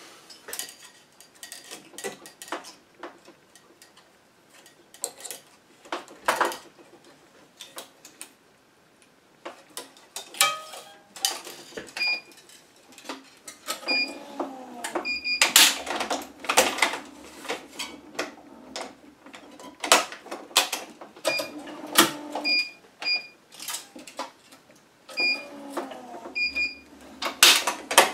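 Electronic tennis-racquet stringing machine at work: its tensioner motor runs in two short stretches pulling the string to tension, with short electronic beeps in pairs, among many clicks and knocks of string clamps and string being handled.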